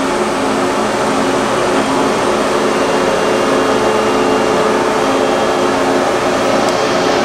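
Steady mechanical hum of a powered-up 1984 Niigata HN50A CNC horizontal machining center standing idle, its axes not yet moving. A low tone pulses on and off about every two-thirds of a second beneath the hum.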